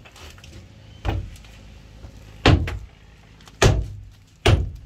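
Four heavy hammer blows about a second apart, each a dull, deep thud, while a bolt is being knocked out of the boat's timbers.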